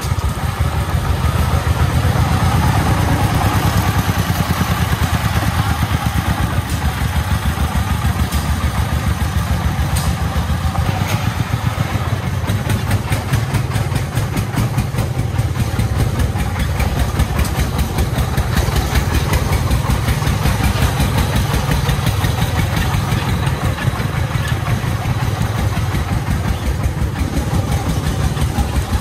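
Công nông farm truck's single-cylinder diesel engine chugging steadily as the truck drives along under a full load of crushed stone.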